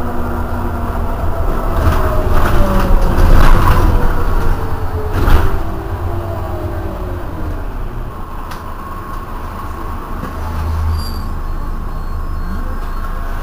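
Iveco Urbanway 12 city bus standing with its engine idling, a steady low rumble that swells briefly near the end. A faint whine falls in pitch over the first six seconds, and a short hiss comes about five seconds in.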